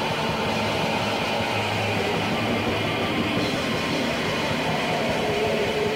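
Raw black metal recording with a lo-fi, old-tape sound: a dense, unbroken wall of distorted noise at steady loudness.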